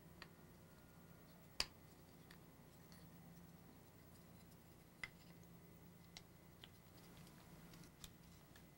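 Quiet handling of small metal handle pins and wooden handle scales on a wooden workbench: about six short, sparse clicks and taps, the sharpest about a second and a half in, over a low steady hum.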